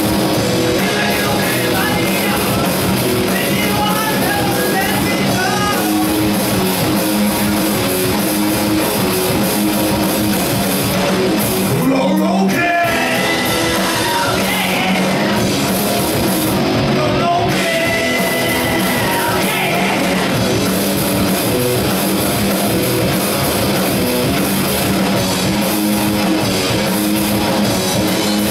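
Live rock band playing loudly: electric guitars over a drum kit, with a melodic lead line weaving in and out above the rhythm.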